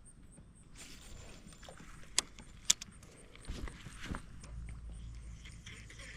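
Small gear being handled: light rustling and jangling with two sharp clicks half a second apart, a few soft knocks, then a low rumble starting about two-thirds of the way through.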